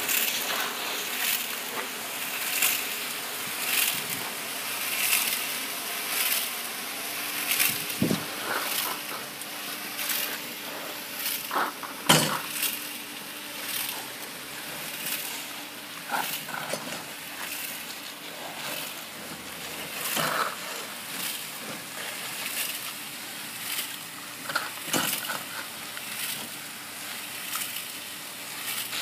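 Drum mixer tumbling a wet pebble-stone aggregate mix, a crunching swish that repeats about every second and a quarter.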